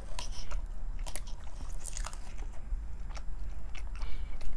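Close-miked chewing and biting of fried chicken fingers and fries, with scattered sharp, crisp clicks from the mouth and food.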